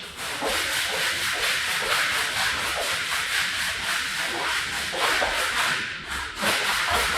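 Rhythmic rubbing strokes on a dirty rug's pile, several a second, with a brief pause about six seconds in.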